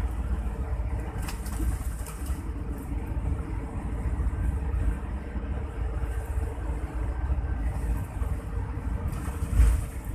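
Coach bus driving, heard from inside the passenger cabin: a steady low rumble of engine and road noise, with a short louder rushing swell near the end.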